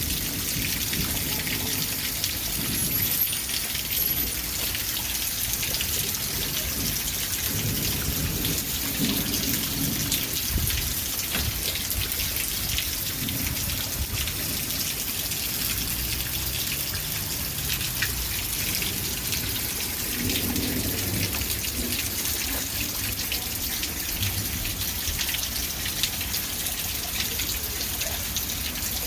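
Steady rain falling, a dense hiss full of fine pattering drops, with low rumbles coming and going underneath.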